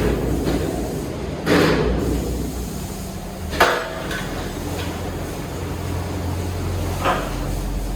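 Heavy woodworking machinery running with a steady low hum, with four loud knocks and clanks of timber and metal: at the start, about a second and a half in, a sharp ringing clank near the middle, and a fainter one about seven seconds in.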